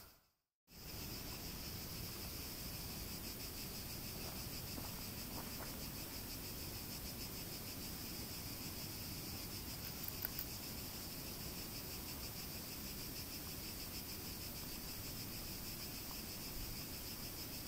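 Steady, faintly pulsing chorus of insects chirping in the woodland, after a brief dropout at the start, with a couple of small clicks about ten seconds in.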